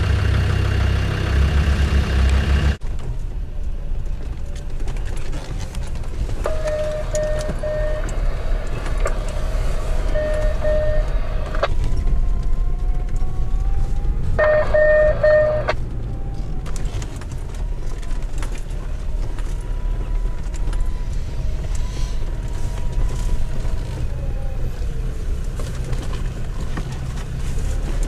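A Land Rover Discovery 2's Td5 five-cylinder diesel engine pulling the vehicle up a rocky crest. About three seconds in it gives way to a steady low rumble of engine and tyre noise inside a 4x4's cabin on a rough gravel track, with faint steady tones coming and going.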